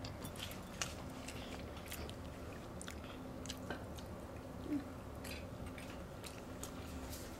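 Quiet mouth sounds of people eating barbecue chicken and bread: chewing and biting with scattered small smacks and clicks. A brief murmur a little under five seconds in.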